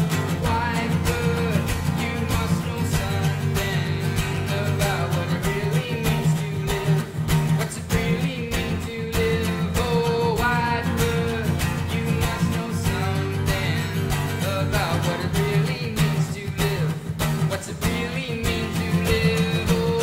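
Acoustic guitar strummed steadily in a solo performance.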